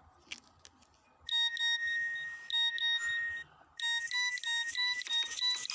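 Electronic phone ringtone playing: a melody of bright beeping notes that starts about a second in, breaks off briefly, then goes on as a quicker run of notes.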